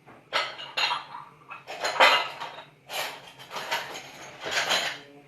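Kitchen utensils clinking and scraping against dishes in several separate bursts.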